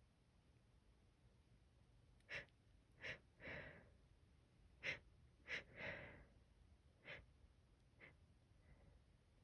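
A woman's pre-sneeze hitching breaths: about eight quick, sharp gasps, some followed by a longer breath, as a sneeze builds that she is trying to hold back.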